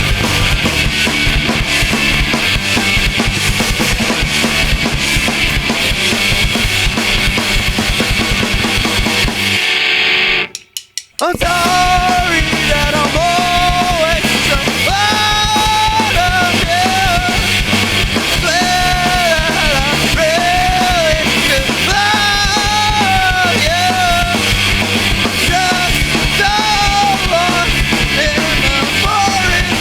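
Live rock band playing loud, with drum kit and distorted guitars. About ten seconds in, the band stops dead for under a second, with a couple of short hits in the gap, then crashes back in with a bending melodic line over the top.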